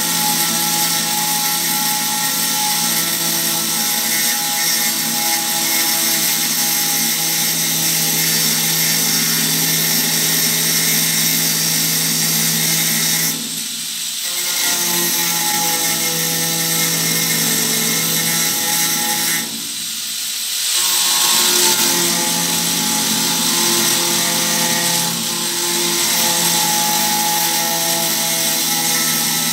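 Corded electric drill motor running steadily at one pitch, easing off briefly a few times before speeding back up.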